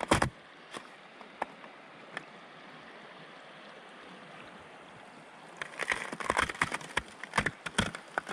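River water flowing steadily under the ice and through open holes, a soft even rush. One crunching footstep in snow at the start, and from about five and a half seconds in, boots crunching through snow with quick steps.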